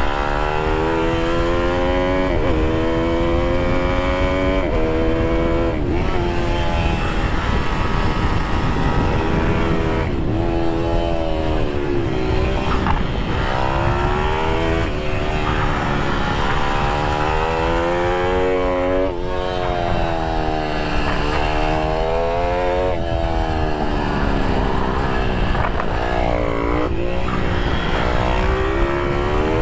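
IMR GP20 pit bike engine heard onboard at full lapping pace. It revs up through the gears with sudden pitch drops at each upshift, then falls off and picks up again through the corners, over a steady rush of wind on the microphone.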